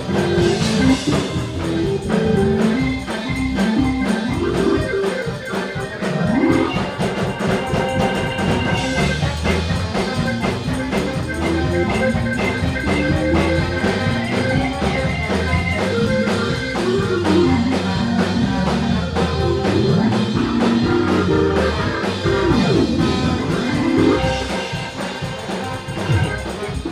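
Church band playing gospel music with a drum kit and guitar, at a steady level.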